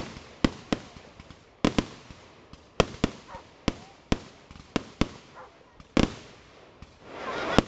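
Fireworks display: aerial shells bursting in a dozen or so sharp bangs at irregular spacing, some in quick pairs, with a swell of noise near the end.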